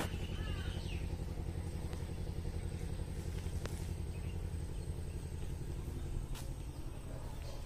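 A steady low motor rumble runs throughout, with a crow cawing once about half a second in.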